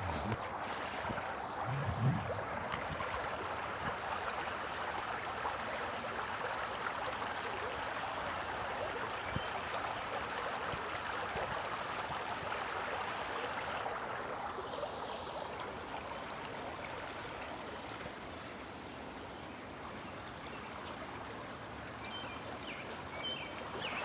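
Running water of a creek: a steady, even rushing.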